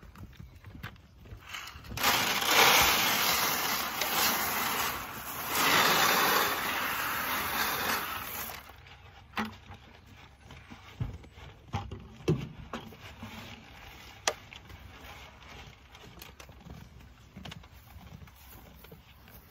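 Grain feed poured from a bucket into a metal feed trough: a hissing rush in two pours, stopping about eight and a half seconds in, followed by a few light knocks.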